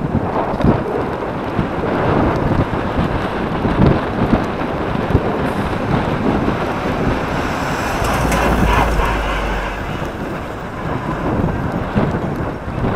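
Wind buffeting the microphone of a camera mounted on a moving recumbent bicycle, mixed with rumble from the road and scattered knocks from the bike. A deeper rumble comes in about eight seconds in.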